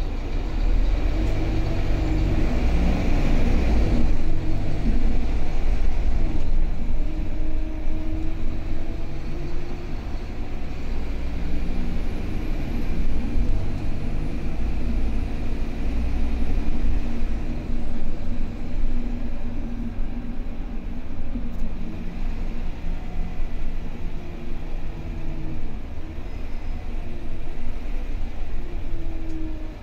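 Scania K320UB city bus's diesel engine and drivetrain heard from inside the passenger cabin while driving: a steady low rumble, with the engine note rising and falling several times as the bus pulls away, changes gear and slows.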